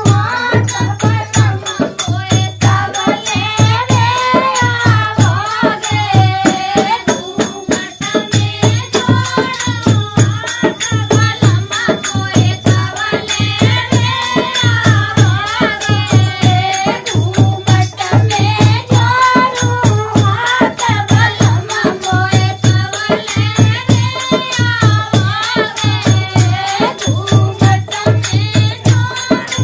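A Dehati folk dance song: a voice sings a bending melody over a steady, regular drum beat, with rattling percussion.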